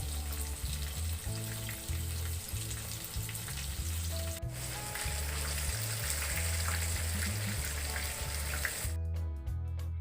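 Floured chicken pieces deep-frying in hot oil, a steady sizzle that cuts off suddenly about nine seconds in.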